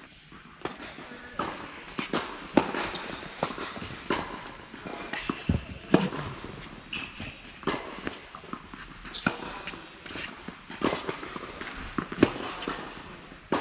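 Tennis balls being struck by racquets and bouncing on an indoor court: a string of sharp, irregular pops, some much louder than others.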